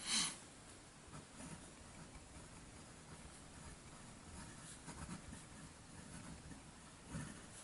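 Pineider Avatar fountain pen's medium steel Bock nib scratching faintly across thin Tomoe River paper in cursive handwriting. There is a short, louder sound right at the start and another near the end.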